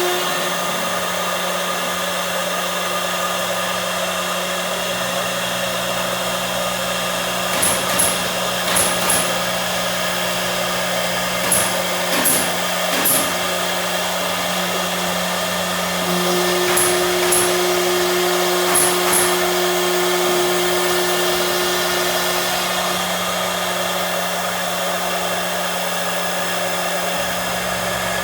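CNC machine running: a steady motor whine with several held tones, broken by short bursts that come in pairs a few times.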